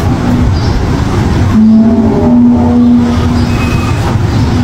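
A loud, steady droning hum from the sky, of unknown origin, with a few fainter higher tones over a low rumble. The drone swells about a second and a half in, then eases back.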